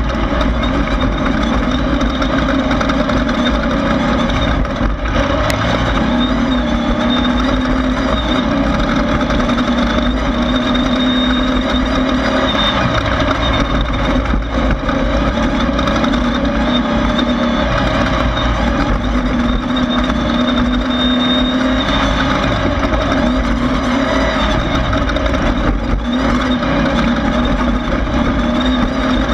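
Air-cooled Volkswagen flat-four engine of a Class 1600 off-road race car running hard at race speed. Its pitch wavers up and down as the throttle changes.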